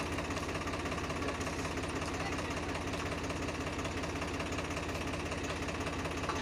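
Swaraj 744 FE tractor's three-cylinder diesel engine idling steadily.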